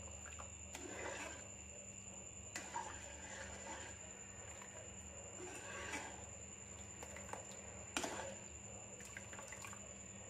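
Spoon stirring thick lemon pickle syrup in a pan: faint wet scraping, with a few light clicks of the spoon against the pan.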